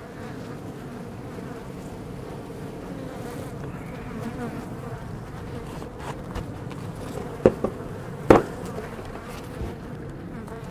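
Honey bees buzzing steadily in a dense cloud around an open, disturbed hive, with a held hum under the buzz. Two sharp knocks cut through about three quarters of the way in.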